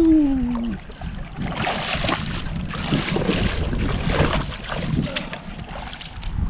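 A man's loud "woo" falling in pitch at the start, then bare feet splashing and sloshing through shallow lake water as he wades out up a concrete boat ramp, with wind rumbling on the microphone.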